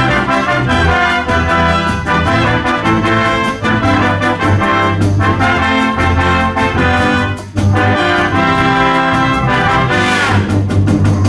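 Concert band of woodwinds and brass playing an up-tempo medley, trumpets and trombones to the fore, with a brief break about seven seconds in and a falling glide near the end.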